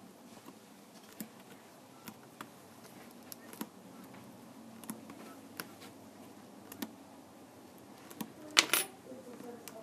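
Light clicks and taps of small tools and parts being handled during a tablet screen repair, with one sharp metallic clatter near the end.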